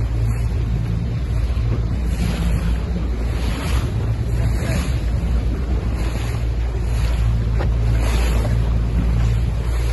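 A motorboat's engine droning steadily as the boat cruises, under wind buffeting the microphone and water rushing past the hull in soft surges.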